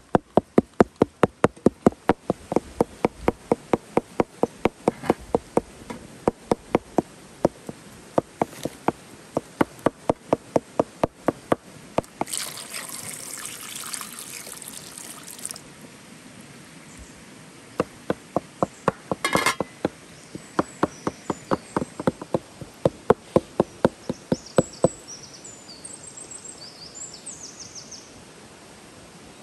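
Cleaver chopping minced chicken on a wooden cutting board: rapid, even knocks about four a second. About twelve seconds in, water pours from a clay jug into a metal pot for about three seconds. The chopping then resumes and stops a few seconds before the end, leaving a steady low hiss.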